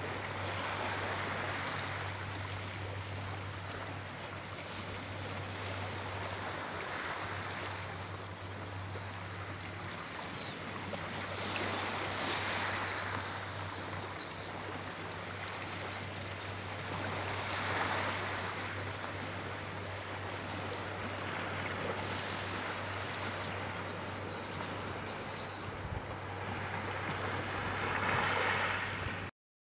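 Small waves washing onto a pebble beach, swelling every few seconds, with birds chirping over them. The sound cuts off suddenly near the end.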